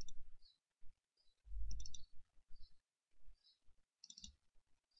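Computer mouse clicking faintly in short clusters, at the start, about a second and a half in and again near four seconds in, as folders are opened in a file dialog.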